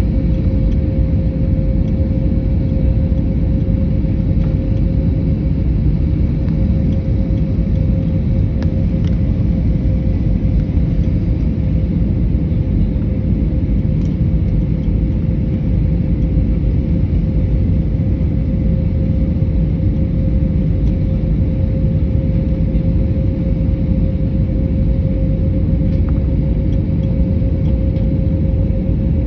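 Jet airliner cabin noise from inside the cabin: a steady, deep rush of engines and airflow with a constant humming tone.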